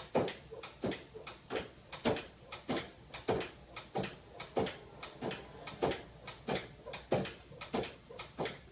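A cat swatting a pet-door flap again and again, so that the flap clacks against its frame in a steady, even run of sharp knocks, about three every two seconds.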